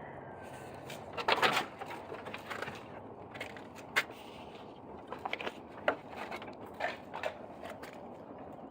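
Scattered light knocks and clicks over steady background noise, with the loudest cluster about a second and a half in.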